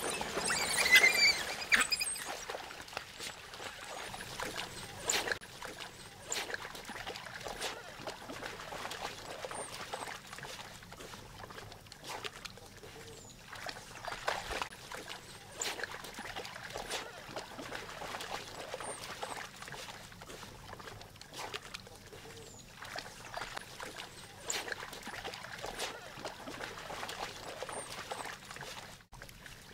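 A pack of African wild dogs and pups splashing and wading in a shallow pool, with yelping and yipping. The loudest splashing and calling comes in the first couple of seconds, then softer splashes and scattered short calls.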